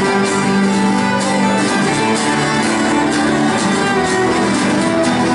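Live acoustic music: a bowed fiddle playing the melody over two strummed acoustic guitars, with no singing.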